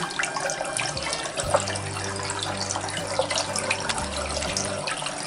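Water from a basin mixer tap running in a steady stream into a glass vessel basin, splashing on the chrome pop-up waste and draining away. This is a flow test of the newly fitted waste pipe, and the water is all going through.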